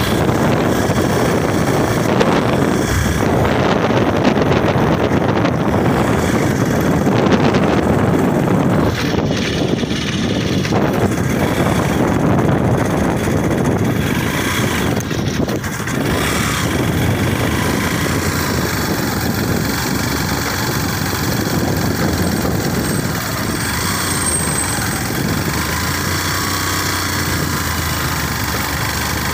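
Motorcycle engine running steadily while riding, with road noise from the tyres.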